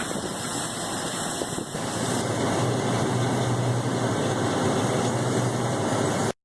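Gleaner combine harvester running steadily, a dense mechanical noise with a low hum that comes in about two and a half seconds in; the sound cuts off suddenly just before the end.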